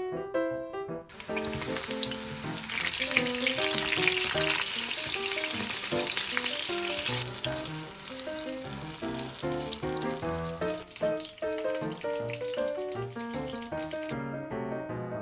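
Food frying in hot oil with a steady sizzle. It starts about a second in, is loudest for the first several seconds, then goes quieter and stops shortly before the end.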